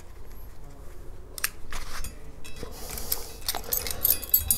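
Steel sprocket chain clinking as it is handled: a few separate clicks of links in the first two seconds, then a quicker jingle of links near the end.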